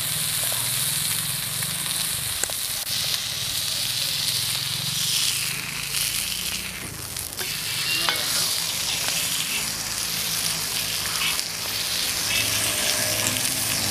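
A whole squirrel sizzling steadily in oil on a black iron griddle, with a few clicks and scrapes of a metal spatula against the griddle as it is pressed and turned.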